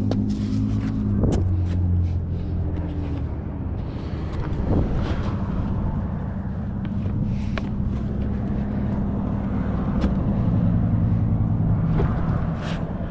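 A vehicle engine running steadily, with a few sharp clicks and knocks over it.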